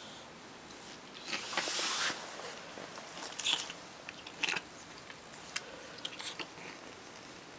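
A cat drooling under the effect of catnip, licking and gnawing at its own paw: irregular wet smacking and clicking sounds, in short spurts. A louder rustle comes about a second and a half in as it rolls on the carpet.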